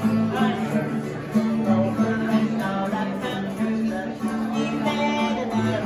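Acoustic guitar played live, strummed chords over an alternating bass line that repeats steadily.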